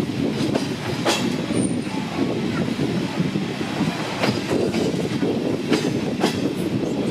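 Passenger train coaches rolling along the track, a steady rumble with a few sharp wheel clicks over the rails, heard from an open coach window.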